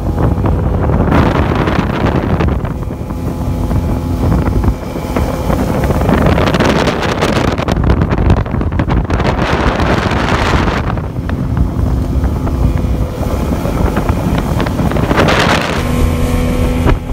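Small open boat's motor running steadily under way, with wind buffeting the microphone in gusts.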